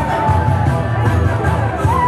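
Loud music: a held melody line that bends up in pitch near the end, over a pulsing bass rhythm.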